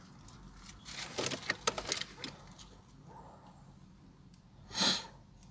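A car key ring jangling and clicking as the key goes into the ignition of a VW Golf 4, with a quick run of sharp metallic clicks. Near the end comes a single short, loud whooshing burst.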